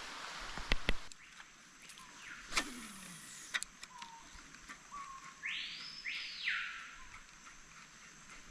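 Birds calling in the forest: a long whistle that falls steeply in pitch, then a rasping call that swells and fades. A couple of low knocks come about a second in.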